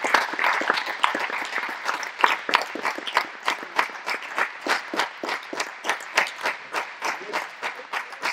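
Audience applauding. The clapping is dense at first, then thins to fewer, distinct claps at about three a second.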